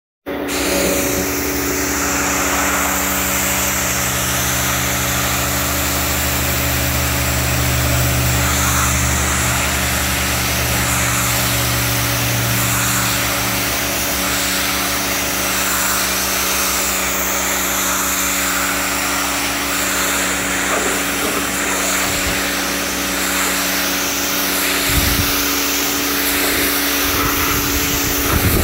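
Pressure washer running steadily: the pump's motor hum under the hiss of the water jet blasting a wet car carpet. A deeper hum under it fades about halfway through.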